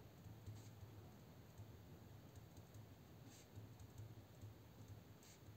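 Near silence: faint, scattered scratches and clicks of a pen writing on paper, over a low steady hum.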